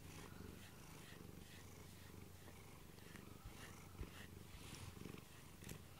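Domestic cat purring faintly and steadily while being stroked under the chin.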